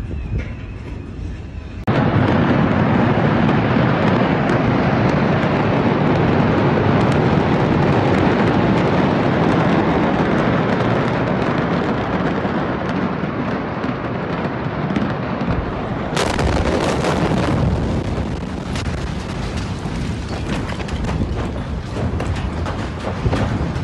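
Blast of the Beirut port explosion picked up on phone microphones. It hits suddenly about two seconds in and is followed by a long, loud, dense rumble and noise. The sound changes abruptly about sixteen seconds in and carries on loud and hissy.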